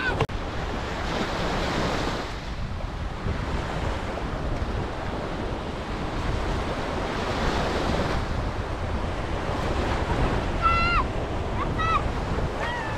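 Surf washing onto a sandy beach, a steady rush that swells now and then, with wind buffeting the microphone.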